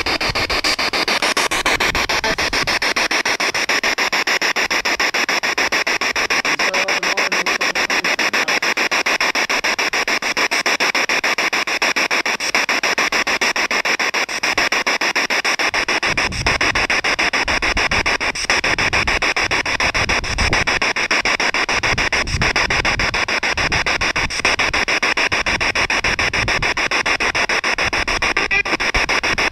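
Loud, steady hiss of static, finely fluttering. From about halfway through, irregular low rumbling puffs are added.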